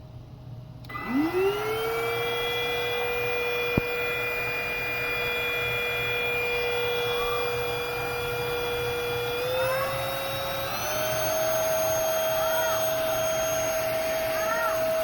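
MBYULO cordless stick vacuum switched on: its motor spins up with a rising whine about a second in, then runs steadily. Later its pitch steps up twice to a higher speed.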